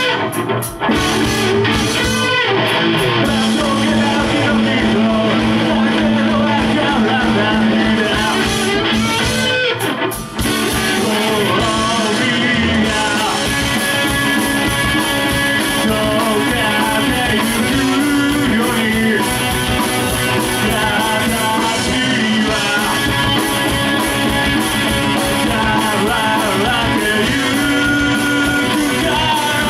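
Live rock band without a bass player playing loudly: distorted electric guitar and drums, with some singing. The music drops out briefly near the start and again about ten seconds in, then carries on.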